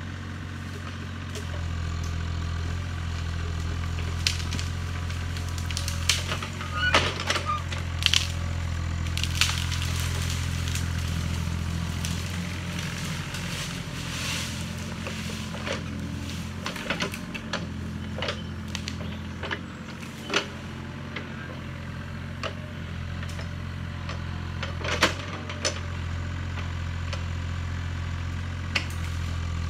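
Yanmar ViO35 mini excavator's diesel engine running steadily under hydraulic load, its note shifting as the boom works. Brush and branches crack and snap in sharp bursts over it, loudest in a cluster a few seconds in and again twice later.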